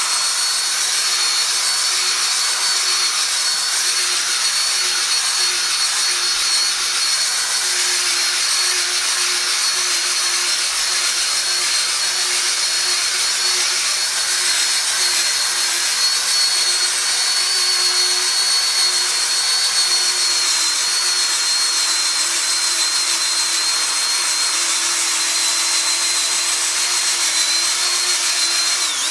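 Handheld power drill spinning a foam scrubbing pad against a glass-ceramic cooktop, running steadily with a high motor whine over the hiss of the pad on the glass.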